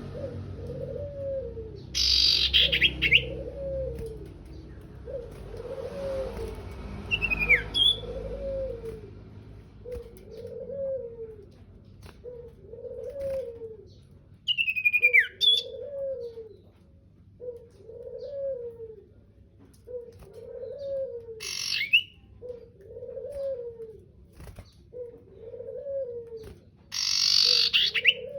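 A bird calling a short, low, cooing note over and over at an even pace, a little under once a second, with a few louder, higher chirps and squawks breaking in every five or six seconds.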